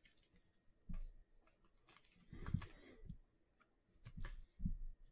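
Faint handling noises of trading cards: a few soft clicks and rustles as cards are moved between the fingers, loudest about two and a half seconds in.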